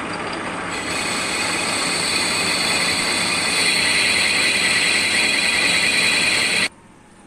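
Lathe cutting tool boring the inside of a spinning steel bush: a loud, steady, high-pitched screeching ring over the running noise of the machine. It grows louder about a second in and again around halfway, then cuts off sharply near the end.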